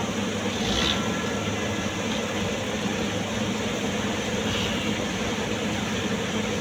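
Steady drone of the diesel engines of a Vögele Super 1900-2 asphalt paver and the dump truck tipping asphalt into its hopper, with a brief knock about a second in.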